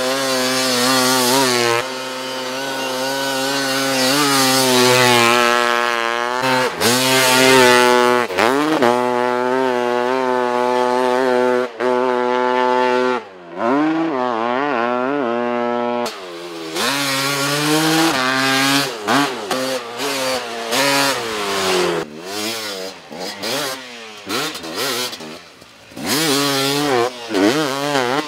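Snow bike engine revving hard, its pitch climbing and falling with the throttle. The second half is choppier, with quick rises and falls and abrupt breaks.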